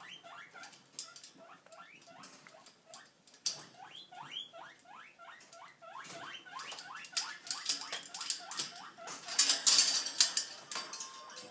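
A quick, steady run of short high squeaks, each rising in pitch, about two or three a second. Louder rustling and crackling of the cloth hammock comes about nine to ten seconds in.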